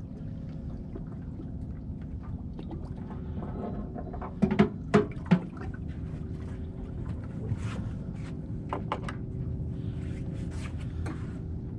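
Water lapping against a small boat's hull over a steady low engine hum, with a few sharp knocks clustered about four to five seconds in.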